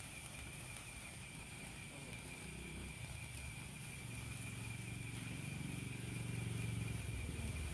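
A motor vehicle's engine running nearby, growing louder from about four seconds in, with a steady high-pitched tone over it.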